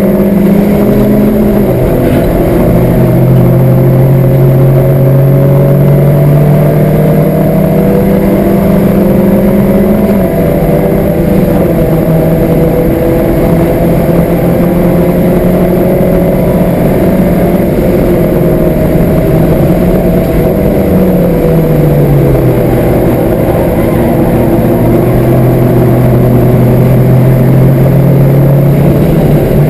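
Citroën Saxo's four-cylinder engine, with a Pipercross air filter and a four-branch exhaust manifold, running hard at high revs, heard from inside the cabin. The revs hold near steady for long stretches, drop about twenty seconds in, then hold steady again.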